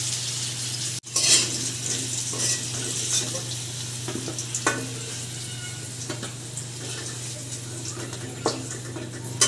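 Hot oil sizzling in a kadai, with a metal spatula scraping and knocking against the pan as fried taro pieces are lifted out, a few sharp clacks among the steady hiss.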